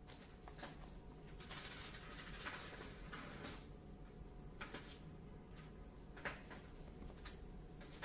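Fingers handling and turning a small cardboard box, faint: a stretch of rubbing and scraping about a second and a half in, then a few light taps and clicks.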